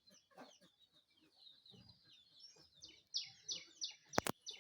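A myna calling: busy high chirps and whistles, then a run of loud repeated falling notes, about three a second. A sharp double click near the end.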